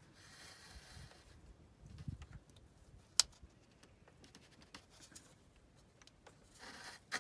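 Faint handling sounds of gloved fingers working at the new belt tensioner pulley, with one sharp click about three seconds in as its plastic dust cap is pushed into place.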